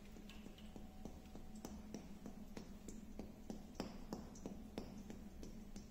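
Faint, irregular light ticks and drips, about three a second, as gum tragacanth size (kitre) runs from an upturned plastic bottle into a metal ebru marbling tray. A steady low hum runs underneath.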